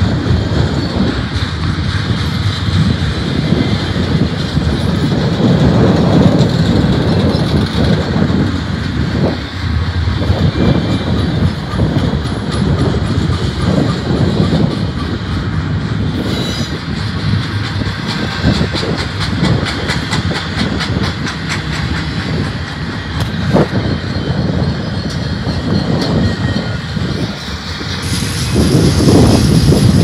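Loaded double-stack container train of well cars rolling past at close range: a continuous rumble of steel wheels on the rails, with a run of rapid clicking and clacking from the wheelsets and car joints in the middle, growing louder near the end.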